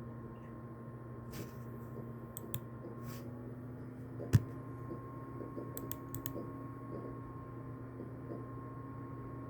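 Scattered computer keyboard clicks over a steady hum, with one sharper, louder knock about four seconds in.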